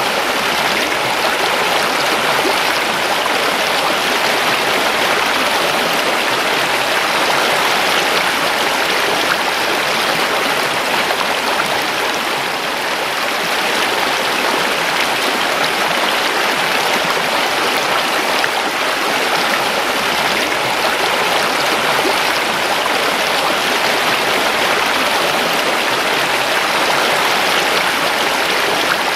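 A river flowing over rocks: a steady, continuous rush of running water.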